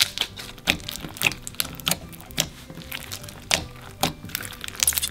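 Clear slime packed with Orbeez water beads being squeezed in the hands and pressed flat, making irregular wet clicks and pops, a few a second.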